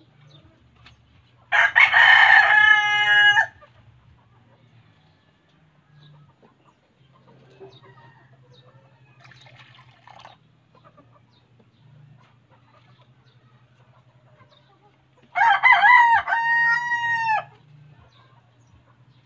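A rooster crowing twice, each crow about two seconds long: the first about a second and a half in, the second a few seconds before the end.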